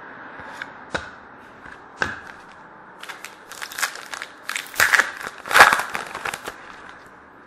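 Trading cards being handled and slid against one another: a couple of sharp clicks about one and two seconds in, then a dense run of snapping and rustling from about three seconds until near the end.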